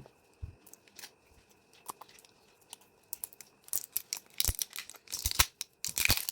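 Cosmetic product packaging being handled and opened by hand: scattered clicks and taps, then busier rustling and crinkling in the second half.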